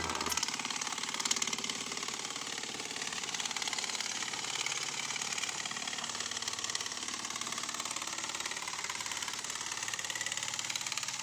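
Electric drill driving a homemade reciprocating shear attachment, its blade chattering rapidly and steadily as it cuts along a thin ribbed steel sheet.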